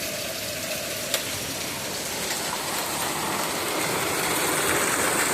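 A steady hiss of heavy rain mixed with hail, with a few separate sharp hail strikes standing out, the clearest about a second in. It grows slightly louder toward the end.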